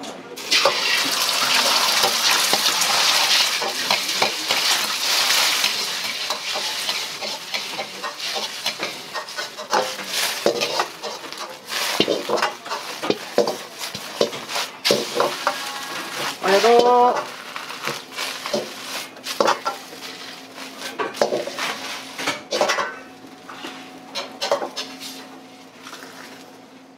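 Beaten egg with green onion poured into a hot, oiled wok: a loud sizzle starts about half a second in and dies down over the next few seconds. After that comes the metal ladle scraping and clacking against the wok as the omelette is shaped.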